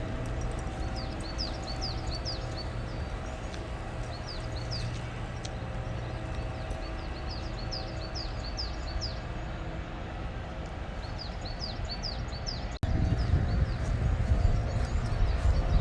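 A songbird singing in short phrases of quick, repeated chirps, over a steady low background rumble. About thirteen seconds in there is an abrupt break, after which the low rumble is louder.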